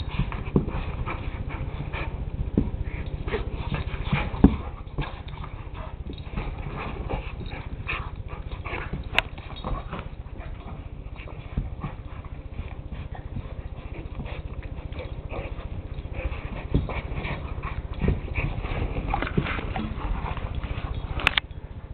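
Two pit bulls, an adult and a puppy, play-fighting over a sock on carpet: irregular scuffles and thumps of paws and bodies, with dog play sounds, over a low steady hum.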